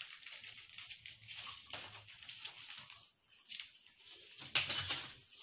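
Handling noise from a flexible exoskeleton bar being bent and its straps swinging: scattered soft rustles and light clicks, with a louder rustle about four and a half seconds in.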